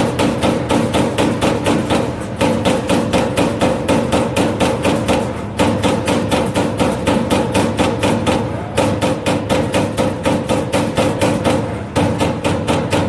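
CNC turret punch press punching sheet metal in rapid runs of about four strokes a second, with a short break every three seconds or so, over a steady machine hum.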